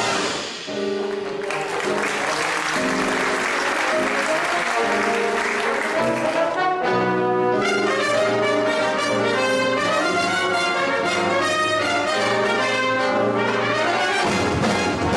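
A jazz band's trumpets and trombones play Afro-Cuban jazz. First they hold chords over a wash of cymbals, then from about six and a half seconds in they play short, quickly repeated notes.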